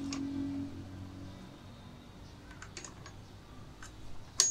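Metal gears and shafts of a Minsk 125 motorcycle gearbox being slid and turned by hand, giving a few scattered metallic clicks. The loudest is a sharp click near the end that briefly rings.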